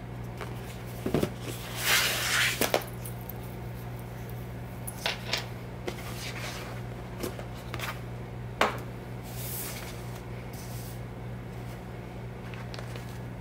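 A cardboard gift box being handled and its lid lifted off: scattered light knocks and taps, with rustling of paper or plastic wrap about two seconds in and again later. A steady low hum runs underneath.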